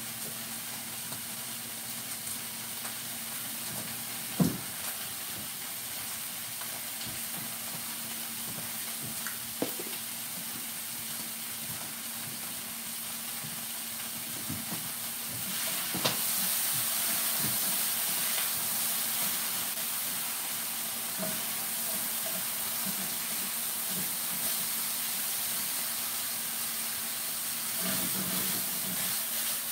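Garlic and broccolini sizzling in a skillet on the stove: a steady frying hiss that grows louder about halfway through. A sharp knock comes a few seconds in, with a few lighter knocks later.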